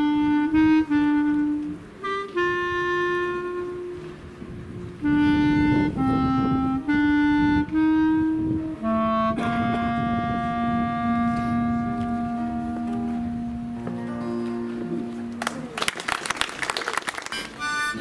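Solo clarinet playing a slow melody of separate held notes, with one long sustained note in the middle. Near the end the tune breaks off and a short burst of noise follows.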